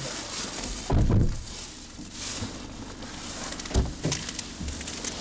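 Rustling and handling noises, with a heavy thump about a second in and a sharper knock near four seconds, as a covering is fitted inside a car.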